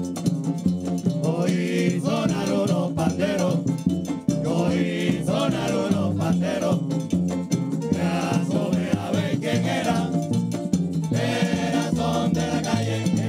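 Live Puerto Rican plena: several men singing a chorus in short phrases, about four in all, over pandero frame drums, a güiro and an upright bass.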